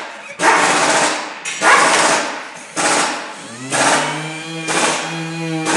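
A handheld electric rotary polisher with a foam pad, working a headlight lens. About three and a half seconds in, its motor spins up and settles into a steady whine. Throughout, there are short loud bursts of noise about once a second.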